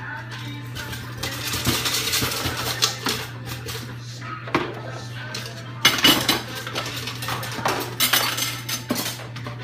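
Kitchen utensils clattering and clinking as spatulas are pulled from and rattled about in a utensil crock, with sharp knocks about six and eight seconds in, over a steady low hum.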